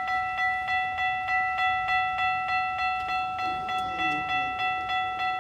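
Railway crossing warning bell ringing at a steady, even rate of about three strikes a second, signalling an approaching train.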